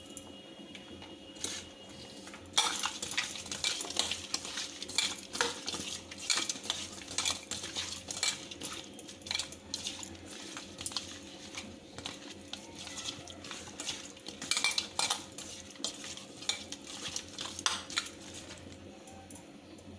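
Hand rubbing turmeric and salt into raw fish steaks in a stainless steel bowl: irregular wet squelches and quick clicks of the fish and fingers against the metal, starting about two and a half seconds in.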